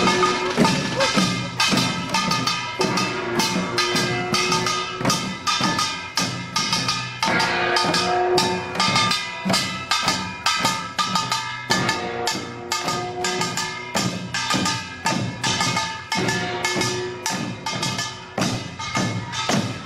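Korean pungmul percussion played on the march: barrel drums (buk) and small hand drums (sogo) beaten in a rapid, driving rhythm with bright metallic ringing strikes, and short held tones recurring every couple of seconds.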